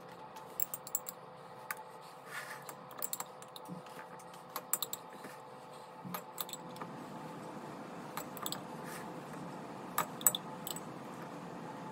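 Metal spoon clinking and tapping against a glass cherry jar and a metal Bundt pan as maraschino cherries are spooned out one by one: scattered light clicks and clinks, over a faint steady hum.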